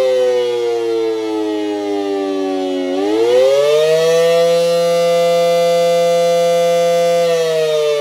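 Federal Signal SD-10 electromechanical siren sounding a wail, the rising and falling attack signal. Its pitch slides down for about three seconds, climbs back up quickly, holds steady for about three seconds, then starts to fall again near the end.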